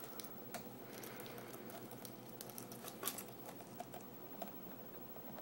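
Faint, irregular ticks and scratches of a cockatiel's claws on a cardboard box as it moves about inside it.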